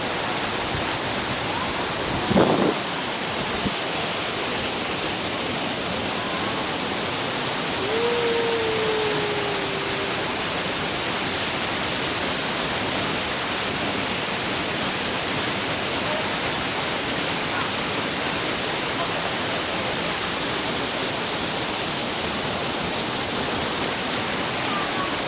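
Dray Nur waterfall rushing, a steady wash of falling water. A brief louder sound comes about two and a half seconds in, and a short faint falling tone about eight seconds in.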